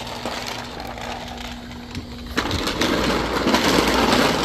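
Homemade wooden dolly on small caster wheels being stepped on and rolled across concrete: a knock a little over two seconds in, then a rough, even rolling rumble. A steady low hum runs underneath.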